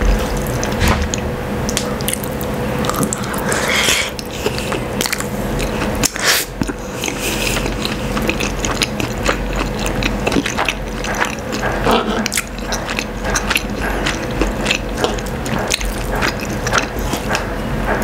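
Close-miked eating of sardines in tomato sauce with rice: wet chewing and mouth sounds, with many sharp clicks and scrapes of a wooden spoon and metal fork on a wooden board.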